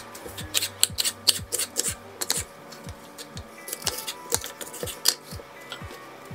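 Kitchen knife chopping a red bell pepper on a wooden cutting board: a quick, irregular run of sharp taps, then a second run about four seconds in. Background music with a steady beat runs underneath.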